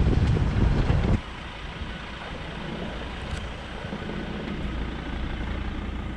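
Loud low rumble of wind and road noise from a pickup driving a dirt track, picked up by a camera on the roof; it cuts off sharply about a second in to a much quieter, steady low engine hum, the vehicle idling.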